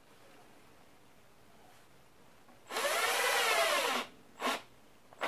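Cordless impact driver running a cleat screw into a rubber boot sole. It whines for just over a second, its pitch rising and then falling, then gives one short second burst.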